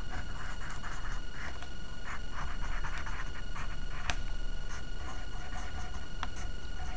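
Graphite pencil scratching on paper in short, irregular strokes as lines are drawn, with two sharp light clicks about four and six seconds in.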